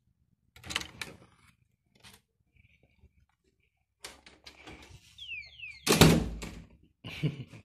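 Hotel room doors being opened: a sharp click from the key-card lock's handle about a second in, then a short squeak and a loud thump about six seconds in as a door swings open, followed by a smaller knock.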